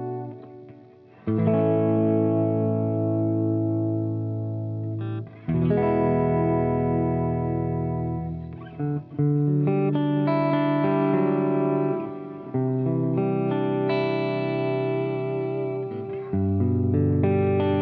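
Electric guitar through a Laney LC15R all-tube amp's clean channel with delay added, playing ringing chords that change about every three to four seconds.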